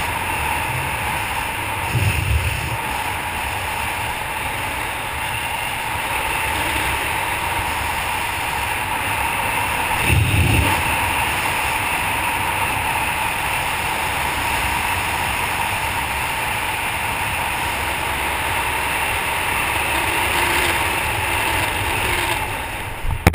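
Steady wind rushing over the microphone of a skydiver's helmet camera under an open parachute, with heavier low buffeting about 2 and 10 seconds in. It drops away suddenly at the very end, as he touches down on grass.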